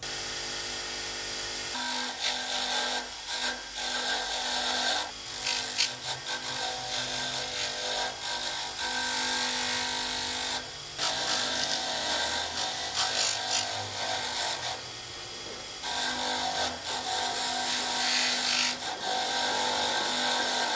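Bench grinder running with a wire wheel, a saw's brass handle screws held against it to scrub off rust and grime. A steady motor hum sits under loud scraping that begins about two seconds in and breaks off briefly a few times when the screw is lifted from the wheel.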